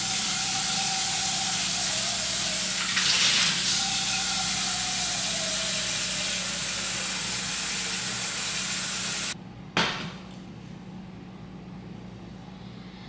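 Kitchen faucet running water into a pot, a steady hiss for about nine seconds, that shuts off suddenly; a short knock follows just after.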